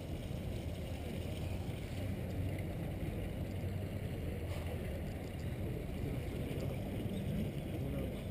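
Steady low outdoor rumble with no distinct events: the ambient background of an open plaza.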